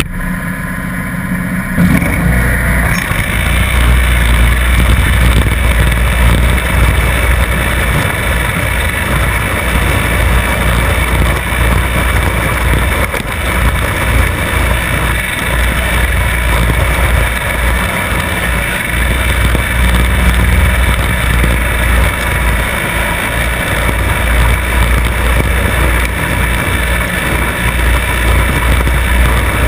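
Cub Cadet riding mower's engine running steadily while mowing, heard close up from low at the front caster wheel, with a fluttering low rumble. It gets louder about two seconds in and then holds steady.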